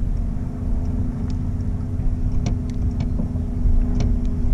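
Steady low rumble and constant hum of the fishing boat's motor, with a few faint clicks over it.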